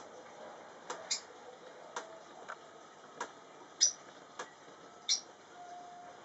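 Lovebirds in an aviary giving short, sharp chirps and clicks, about eight of them spaced irregularly, the loudest a little past the middle.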